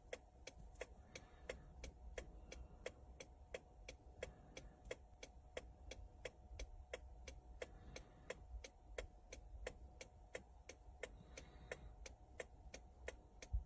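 Faint, evenly spaced ticking, about three ticks a second, like a clock, over a faint steady hum.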